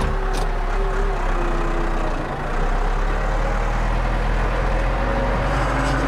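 Tractor engine running steadily, heard from inside the cab. A whining tone rises slightly and fades out about two seconds in, and there is a short click just after the start.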